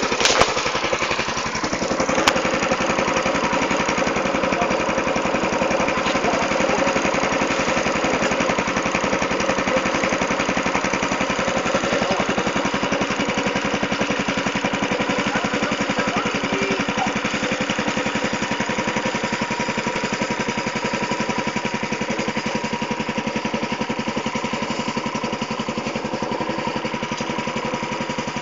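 Small engine of a homemade go-kart running steadily at an even speed, with two sharp knocks in the first few seconds.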